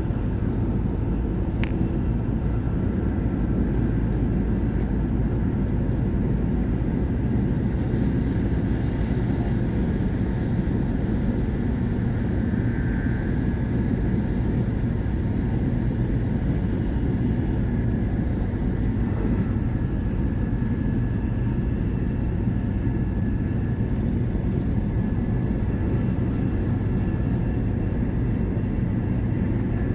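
Shinkansen running noise heard inside the passenger cabin: a steady low rumble with a faint high whine.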